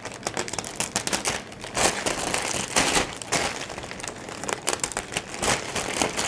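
Plastic packaging crinkling and rustling in irregular bursts as it is pulled out of a cardboard box and handled.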